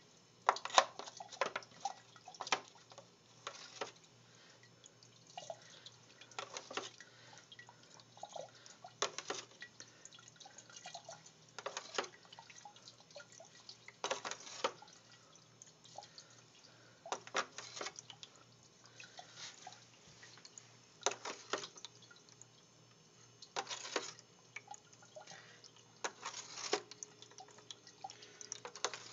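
Water splashing and dripping in short irregular bursts in a plastic cat water dish as its level is drawn down, over a faint low steady hum.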